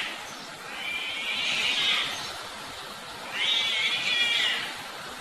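Cats caterwauling in a fight standoff: two long, drawn-out yowls, each rising and falling in pitch over about a second, the aggressive howling of cats squaring off.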